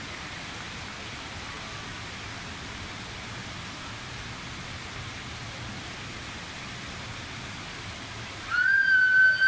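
Steady rush of running, splashing water. About eight and a half seconds in, a loud, shrill, high-pitched cry cuts in and holds at one pitch for over a second.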